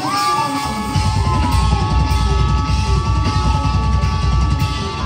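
Live funk band playing: a held chord rings steadily, and about a second in the drums and bass come in hard with fast, dense hits underneath.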